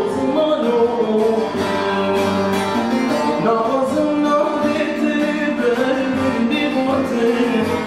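A man singing a Kurdish song in long held notes, accompanied by a plucked long-necked saz (bağlama).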